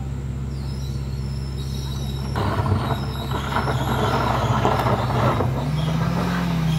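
Car engine pulling steadily up a steep, loose dirt-and-gravel slope, with a rough hiss of tyres on gravel for about three seconds in the middle. Near the end the engine pitch rises and then drops back.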